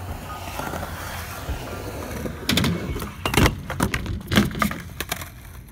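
Skateboard wheels rolling on concrete, then a run of sharp clacks and thuds from the board hitting the ground and the ramp, about two and a half to four and a half seconds in.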